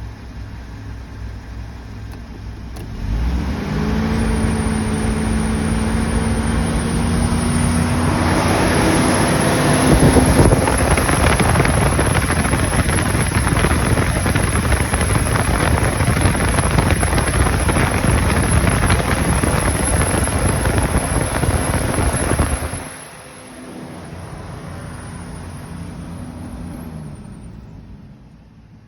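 Car engine running, getting louder about three seconds in. A loud, even rushing hiss sits over it from about eight seconds in, then cuts off after about fifteen seconds, leaving the engine hum quieter.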